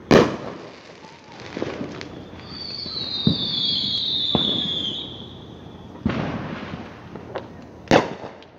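Aerial fireworks bursting: a loud bang at the start, scattered pops and crackles, and a high whistle falling slightly in pitch for about two and a half seconds in the middle. Another boom comes about six seconds in and a sharp bang near the end.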